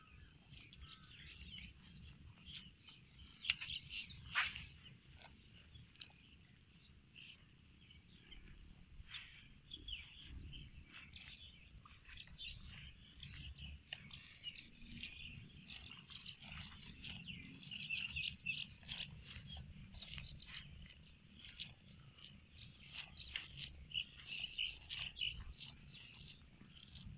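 Wild birds chirping, with one bird repeating a short high note about once a second through most of the stretch.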